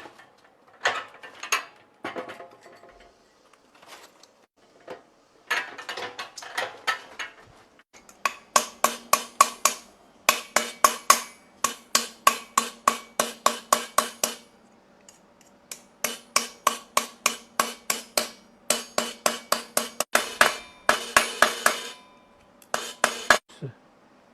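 Hammer blows fixing two handles onto a handmade cat litter box: quick, evenly spaced strikes with a metallic ring, about three to four a second, in several runs broken by short pauses.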